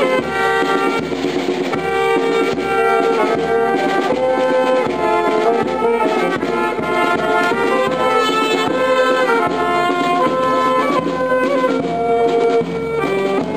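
A brass band playing a march melody over a bass drum beating about twice a second.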